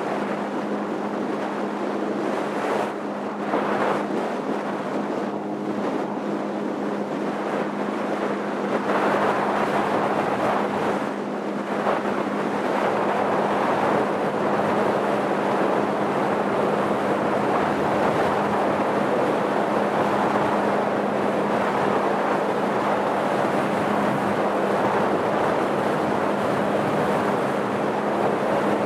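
Motorboat under way: a steady engine hum under the continuous rush and splash of water along the hull, with wind buffeting the microphone.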